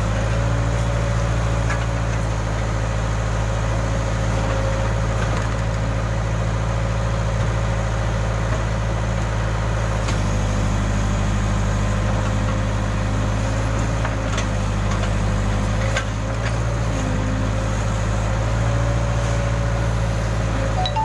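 Case backhoe loader's diesel engine running steadily at an even speed.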